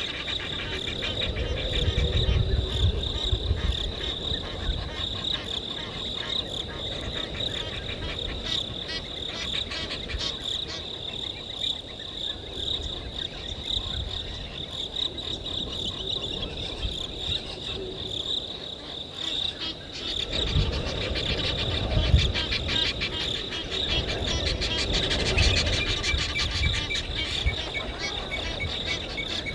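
Crickets chirring in a steady, high, finely pulsed chorus, with low rumbles breaking in briefly about two seconds in and again twice past the twenty-second mark.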